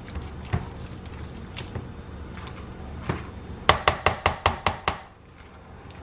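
A spatula stirring macaroni and cheese in a glass mixing bowl and knocking against the glass: a few scattered knocks, then a quick run of about seven knocks in just over a second, a little past halfway through.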